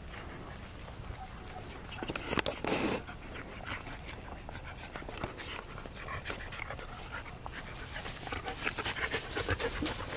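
Dog panting as it trots along carrying a stick in its mouth.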